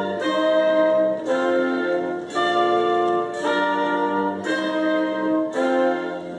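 Orchestral music led by brass, playing a slow run of held chords that change about once a second.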